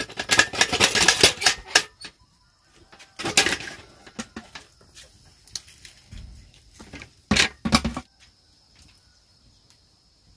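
Hard objects clattering and knocking in bursts: a long run of rapid clatter at the start, a shorter burst about three seconds in, and two louder knocks about seven seconds in, then quiet.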